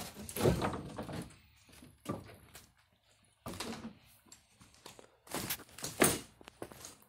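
Footsteps over a floor littered with loose wooden boards and debris: irregular thuds, knocks and scrapes, the loudest about half a second in and again around five to six seconds in.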